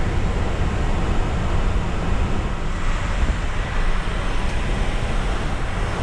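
Steady rushing cabin noise on an Airbus A350 flight deck in cruise, heaviest in the deep rumble, with no changes or distinct events.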